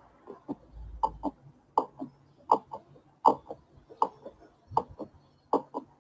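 Recorded heartbeat sound: a steady lub-dub, two soft thumps close together, repeating about 80 times a minute.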